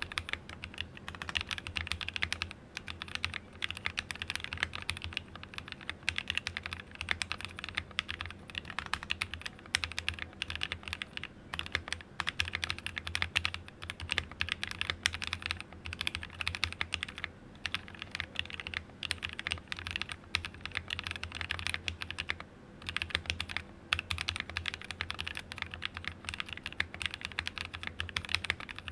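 Fast, continuous typing on a mechanical keyboard with lubed NovelKey Cream linear switches on a plateless BM60 hotswap PCB in a clear acrylic case, the keys bottoming out in a dense stream of clacks with a couple of brief pauses.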